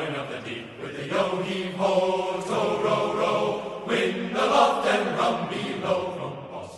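A group of voices singing together in a chant-like song.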